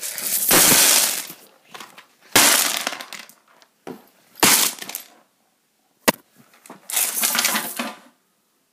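Wooden chessboard being knocked over, its chess pieces clattering and scattering in several separate bursts of crashing and rattling, with one sharp knock about six seconds in.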